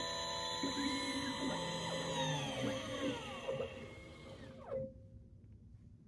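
Xhorse Condor XC-Mini Plus key cutting machine finishing its cut, its motors whining at several steady pitches and then in a series of rising and falling whines as the cutter moves back, dying away about five seconds in.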